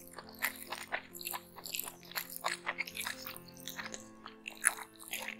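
Close-up chewing and lip-smacking of a person eating mutton biryani by hand: a quick run of wet mouth clicks and chews, the loudest about four and a half seconds in. Soft background music with steady held notes plays underneath.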